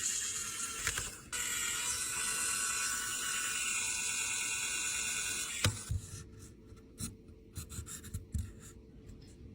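Small-tool repair work on an iPhone 13 mini during a battery replacement: a steady hiss for about five seconds, broken once a second in, that cuts off suddenly, then scattered light clicks and taps of tools on the phone.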